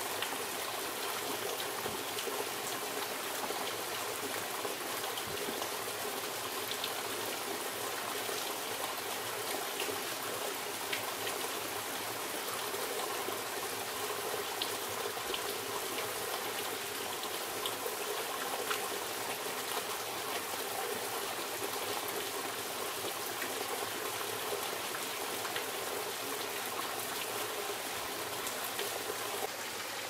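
Steady rushing water: an even, unbroken hiss with faint scattered ticks of drops.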